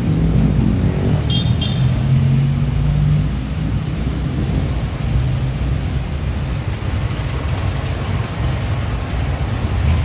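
Street traffic: a motor vehicle engine running close by, steady drone with the level dipping slightly after a few seconds, and two short high-pitched beeps about a second and a half in.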